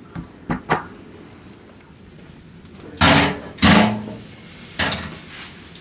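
A few light clicks, then two loud bangs in quick succession about three seconds in, and a lighter one near the end, like a door or hard fixture being knocked and shut.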